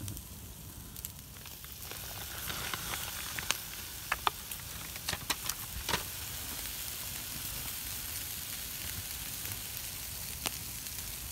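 Sirloin steaks sizzling on a grill over a campfire: a steady hiss with sharp pops and crackles, most of them between about two and six seconds in.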